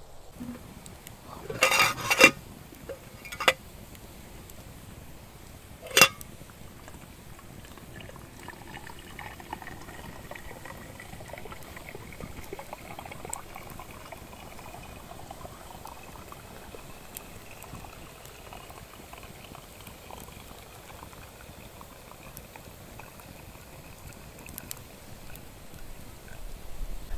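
A metal pot knocks a few times in the first six seconds, then liquid in it heats and bubbles steadily, with a faint whine that slowly rises in pitch as it comes toward the boil.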